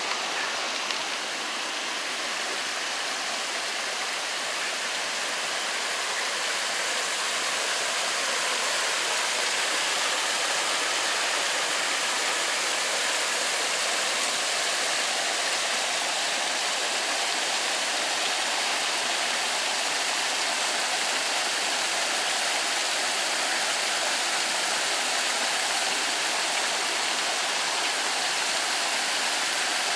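Small woodland waterfall, a forest stream spilling in thin falls over a rock ledge: a steady rush of falling and splashing water, growing a little louder several seconds in.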